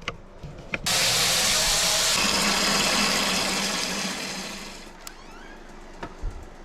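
Water running hard from a tap into a pan, starting suddenly about a second in and tapering off over the next few seconds as the flow is shut down.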